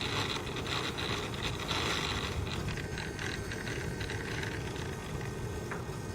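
Tail drive gears of a gasoline-converted 700N DFC RC helicopter making a rough, rattling whir as the drivetrain turns. The gear noise is strongest in the first two and a half seconds and eases off after about four and a half seconds.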